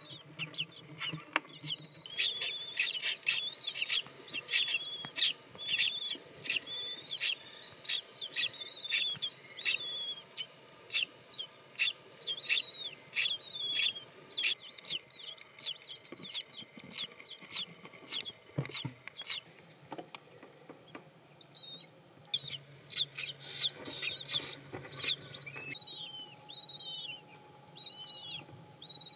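Kestrels calling in the nest: long runs of quick, high chirps, several a second, with a quieter spell in the middle.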